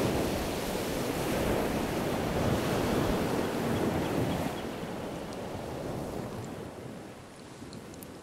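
Wind buffeting the microphone, a steady rushing noise that dies down over the last few seconds.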